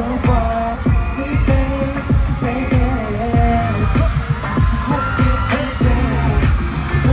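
A male pop vocalist singing live over a loud K-pop backing track with a heavy, pulsing bass beat, heard through an arena's sound system.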